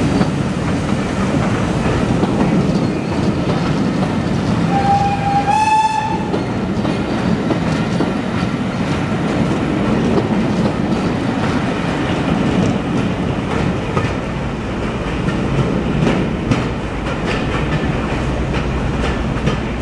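Heritage passenger train's coaches rolling past as it departs, wheels rumbling and clicking over the rail joints. About five seconds in, the train's whistle sounds once for about a second, rising slightly in pitch.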